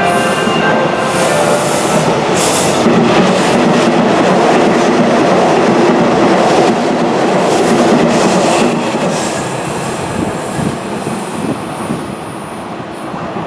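Hanshin Railway electric train running past the platform, a loud rush of wheels on rails that lasts about nine seconds and then fades as the train moves away.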